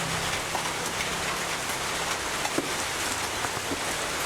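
Heavy rain falling steadily, with scattered sharp drip ticks over the even hiss.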